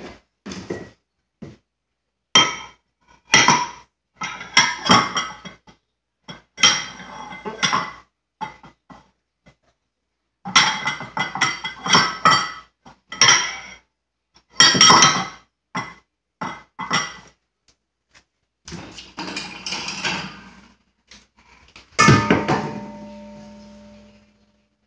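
Dishes and cutlery clinking and clattering as they are lifted out of a dishwasher and set down, in irregular bursts with short gaps. Near the end a louder clang from a pot or metal bowl rings on for about two seconds.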